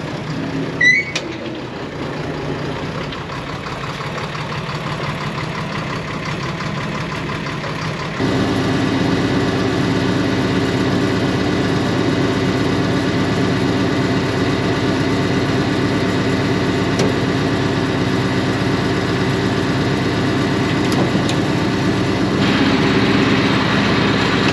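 Massey Ferguson tractor engine running steadily, warmed up. About eight seconds in it abruptly gets louder and stays at the higher level.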